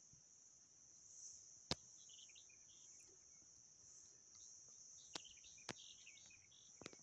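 Crickets trilling steadily and high, with faint bird chirps and a few sharp clicks, one about two seconds in and a cluster near the end.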